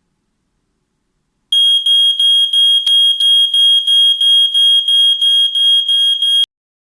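SR-823PHS battery-powered standalone smoke detector sounding its alarm on test: a loud, high-pitched beeping at about three beeps a second. It starts about a second and a half in and cuts off suddenly after about five seconds.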